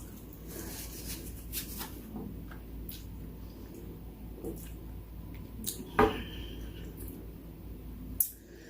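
A person eating close to the microphone: small wet mouth clicks and food-handling noises, with a sharper click or clatter about six seconds in and another just after eight seconds.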